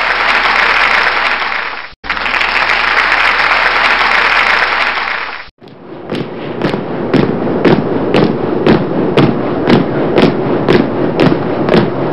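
Even, hissing noise, cut off abruptly twice, then a run of regular sharp thumps about two a second.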